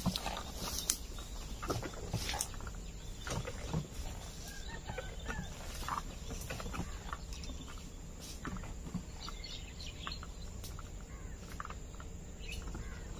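Outdoor ambience of faint bird chirps over a steady low background, with rustling footsteps through grass and brush, most distinct in the first few seconds and fading as the walker moves away.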